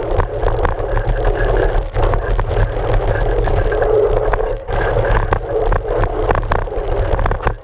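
Mountain bike riding down a dirt trail, heard close to the front wheel: a steady rumble of wind and knobby tyre rolling on dirt, with many sharp clicks and rattles from the bike and gravel. The noise drops briefly at the very end.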